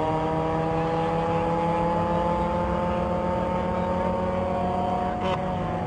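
Two drag-racing cars at full throttle on a quarter-mile run. Their engine notes climb slowly in pitch as they pull away down the strip, with a brief dip about five seconds in.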